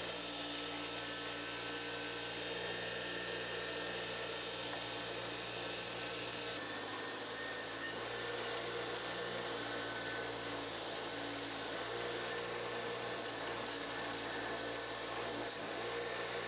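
Bench grinder's wire wheel running steadily with a motor hum while the steel head of a Collins splitting axe is held to it, the bristles scrubbing off paint and rust. The sound's character shifts slightly about six and a half seconds in.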